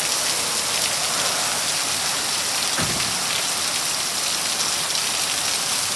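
Very heavy rain pouring down in a thunderstorm downpour, a steady hiss of rain hitting surfaces. A single brief low thump comes about three seconds in.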